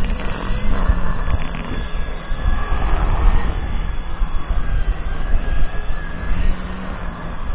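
Wind buffeting the microphone with a gusty low rumble, over the steady whine of a grass mower's motor running.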